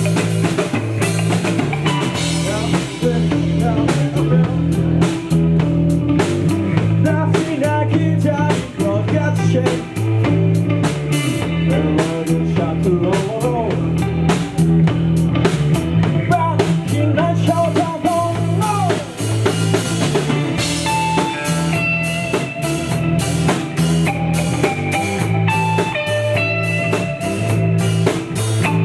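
Live rock band playing: Telecaster-style electric guitar, electric bass and a drum kit, with a steady driving beat.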